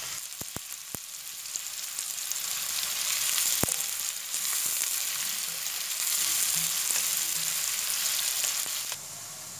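Sliced onions sizzling in hot oil in a non-stick pan while being stirred with a spatula, fried until light golden. A few sharp clicks of the spatula against the pan come in the first second and once more a little after three seconds in. The sizzle grows louder in the middle and drops in level near the end.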